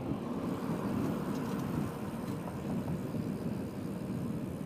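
Steady low rumble of riding a bicycle along an asphalt city street: tyre and wind noise, with road traffic in the background.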